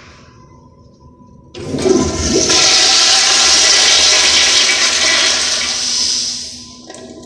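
American Standard Afwall commercial toilet flushed by its manual flushometer valve: a loud rush of water starts suddenly about a second and a half in, holds for about five seconds, then dies away.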